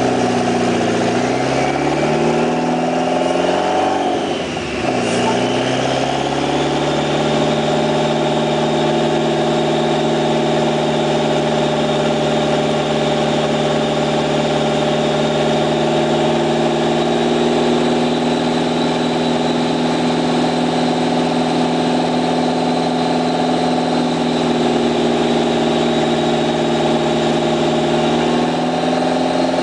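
Mitsubishi Lancer Evolution X's turbocharged 2.0-litre four-cylinder with a full aftermarket exhaust running on a chassis dyno. It climbs in pitch for the first few seconds, dips briefly about four and a half seconds in, climbs again, then holds a steady speed with an even engine note, rising slightly near the end.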